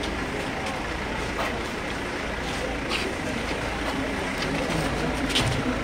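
Steady background noise of vehicles and an indistinct gathered crowd, with a few short clicks about three seconds in and near the end.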